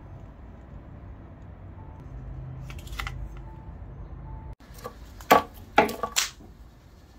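Metal supercapacitor cans handled on a workbench, clacking against each other and the wood: four or five sharp clacks in quick succession in the second half, after a couple of faint handling clicks over low room hum.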